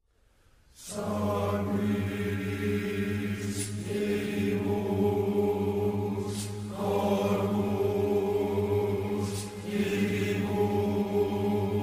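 Dark, droning background music that fades in about a second in: a low sustained chant-like tone, with airy swells rising and falling roughly every three seconds.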